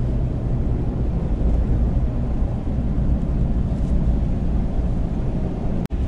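Steady low drone inside the cab of a 2019 Ram 2500 pickup, from its 6.7-litre Cummins inline-six turbodiesel and tyres on a wet highway, while towing a loaded gooseneck trailer. It breaks off for an instant near the end.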